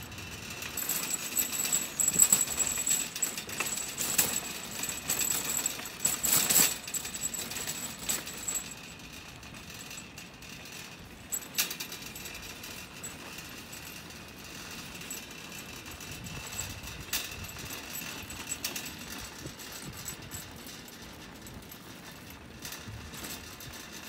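Metal wire shopping cart rattling and clinking as it is pushed over asphalt, loudest over the first eight seconds, with a thin high whine over that part, then a quieter steady rattle.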